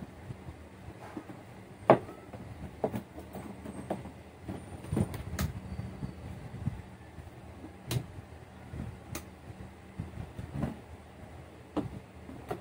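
Hollow plastic knocks and clatter as the moulded seat of a ride-on toy car is set back over its compartment and pressed into place, with one sharp knock about two seconds in and scattered taps and rattles after.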